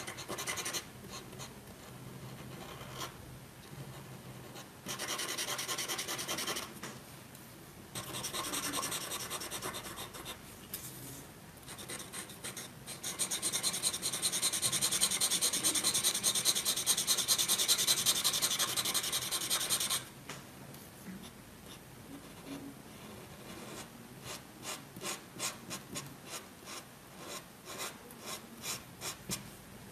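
Felt-tip marker rubbing and scratching on paper as a black area is filled in with back-and-forth strokes. It is loudest in a long stretch around the middle, then breaks into quicker short strokes near the end.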